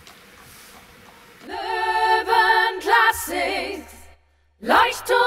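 Background music: after a quiet first second or so, voices start singing a German song. There is a brief break about four seconds in, and the singing goes on after it.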